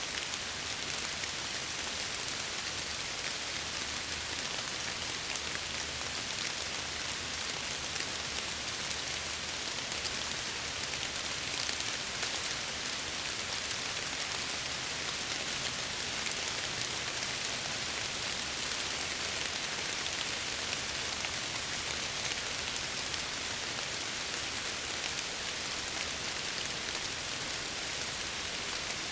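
Steady rain pattering against a window pane, an even hiss with fine drop ticks.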